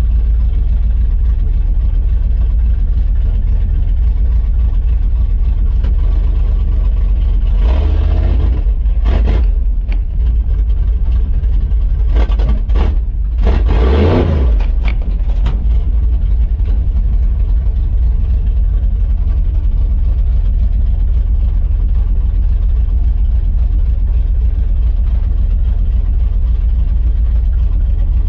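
1976 Chevy K10's small-block 350 V8 running as the truck is driven a short way, a steady low engine sound with two brief louder spells, about eight and fourteen seconds in.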